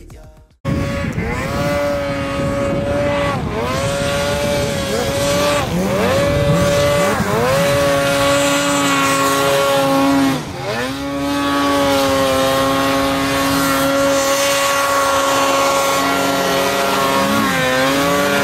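Snowmobile engine running hard at high revs, starting abruptly about half a second in. Its pitch dips briefly and climbs back about four times, the deepest about ten seconds in, as the throttle is eased and reapplied.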